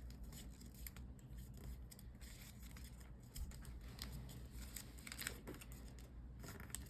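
Origami paper being folded and creased by hand: faint rustling with scattered small scrapes of the paper.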